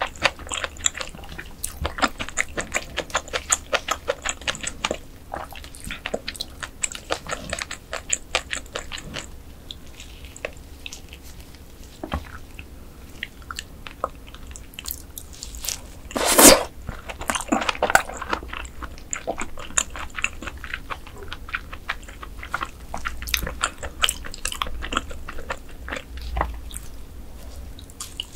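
Close-miked eating of mantis shrimp: crisp crunching and wet chewing with many small clicks, thinning out for a few seconds past the middle and broken by one louder crunch about halfway through.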